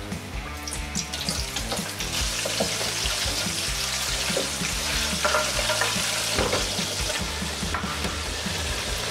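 Battered chicken drumsticks frying in hot oil in an electric deep fryer, the oil bubbling and sizzling steadily, growing louder about two seconds in.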